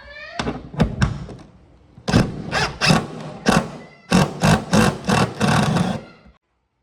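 Handheld power tool run in a quick series of short bursts, about a dozen in a row, each a fraction of a second long, stopping suddenly near the end.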